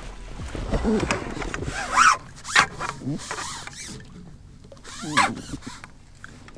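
Water splashing as a crappie is scooped up in a landing net and lifted out of the lake, with a few short, sharp splashes, the loudest about two and two and a half seconds in and another about five seconds in.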